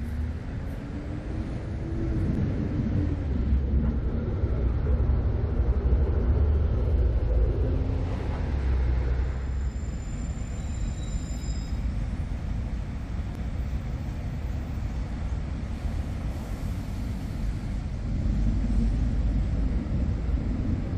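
Steady low rumble of city traffic, with one vehicle's engine note rising and then holding through the first eight seconds or so.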